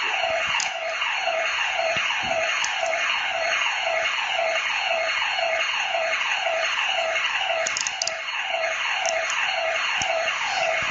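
Home burglar alarm siren sounding continuously, a loud electronic wail that sweeps downward in pitch over and over, about two sweeps a second.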